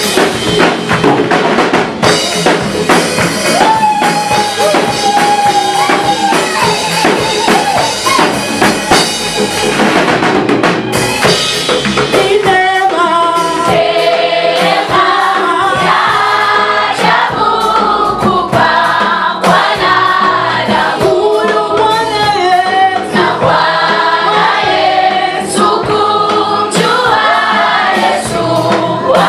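Gospel choir song with drum-kit accompaniment. About the first ten seconds are instrumental with a held lead note; the choir's voices come in around twelve seconds in and sing to the end.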